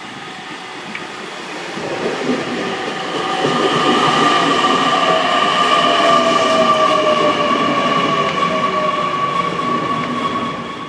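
JR Kyushu 813 series electric train running past along the platform. Its motors and inverter give a whine, with one tone falling steadily in pitch, over the rumble of wheels on rail. The sound swells about two seconds in and fades near the end.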